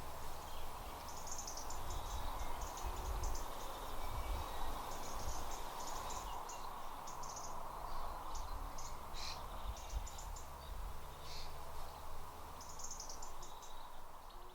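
Small birds chirping in quick clusters of short high notes, again and again, over a steady low outdoor rumble.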